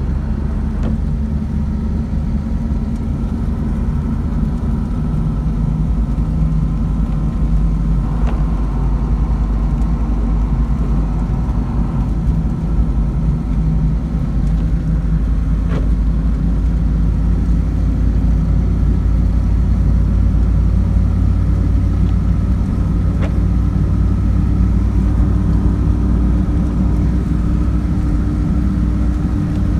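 Car driving, heard from inside the cabin: a steady low rumble of engine and road noise, with a few faint ticks and a steady hum coming in near the end.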